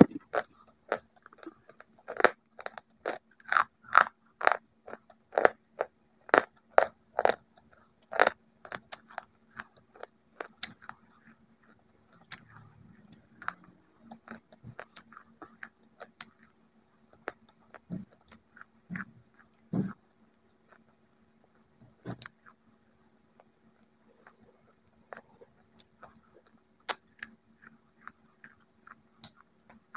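Close-up crunching and chewing of a crumbly white bar, with sharp crunches about once or twice a second for the first ten seconds or so, then fewer and softer ones.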